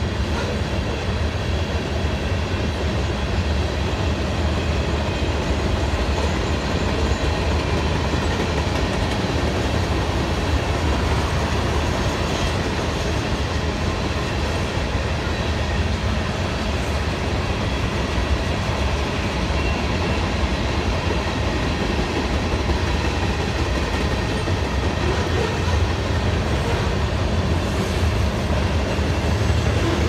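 Freight cars of a manifest train rolling past, a steady, even noise of steel wheels on the rails that holds level throughout.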